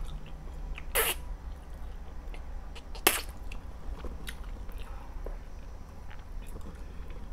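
Close-miked eating of spaghetti: a short slurp of a noodle about a second in, a sharp click about three seconds in, and small mouth clicks and chewing sounds between.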